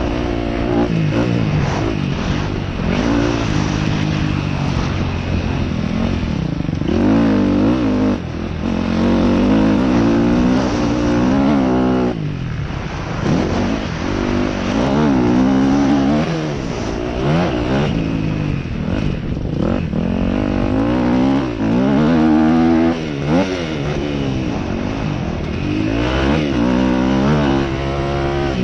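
Dirt bike engine revving hard and easing off over and over as it is ridden round a motocross track, its pitch climbing and dropping repeatedly with brief dips in between.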